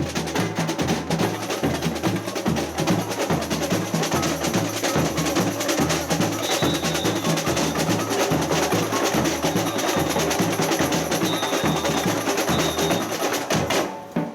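Samba percussion ensemble playing a driving batucada rhythm: deep bass drums alternate between two pitches under dense snare-drum and wood-block-like strokes. The drumming stops abruptly near the end.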